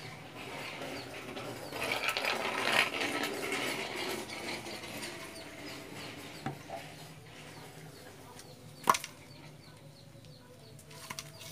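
The steel pressure tank of a Sanyo jet pump being unscrewed by hand, its threaded joint grating as it turns, loudest a couple of seconds in. A single sharp knock comes about nine seconds in.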